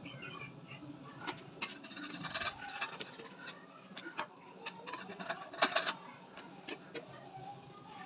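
Kitchen utensil scraping and rubbing against cookware, with irregular sharp clicks and knocks.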